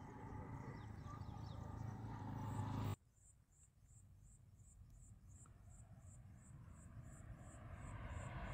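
Insects chirping in a steady rhythm, about three chirps a second, over a distant low rumble that slowly grows louder: the Tamil Nadu Express approaching. Before that, a louder low rumble cuts off abruptly about three seconds in.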